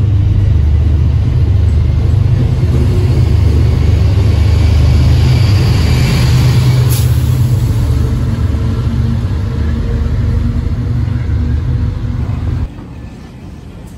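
MBTA commuter rail train of bilevel coaches rolling along the platform, a loud steady low rumble with a brief hiss about seven seconds in. The rumble drops away suddenly near the end.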